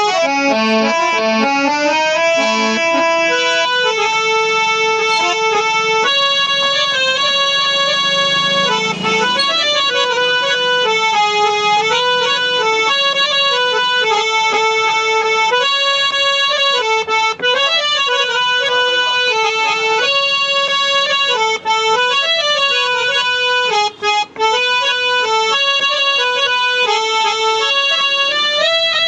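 Antique Ratiram and Sons hand-pumped harmonium with German male reeds, played as a melody with a continuous reedy tone. Lower notes sound alongside the tune in the first few seconds.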